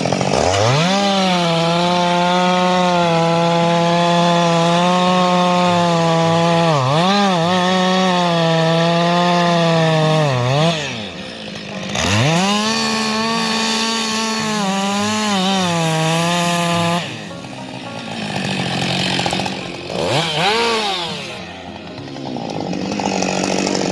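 Two-stroke chainsaw running at full throttle, its high engine note dipping briefly a couple of times. It drops back about eleven seconds in, revs up again a second later, drops back once more near seventeen seconds, and gives a short rev a few seconds after that.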